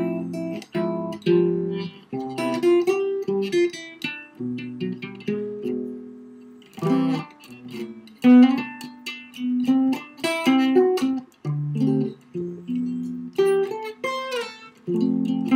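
Solo guitar played unaccompanied in jazz style, chords mixed with single-note melody lines, in short phrases with brief pauses between them.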